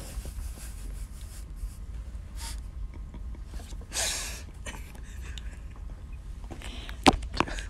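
Stifled laughter: short breathy snorts and exhales through the nose and covered mouth, with a stronger burst of breath about four seconds in. Two sharp clicks near the end are the loudest sounds.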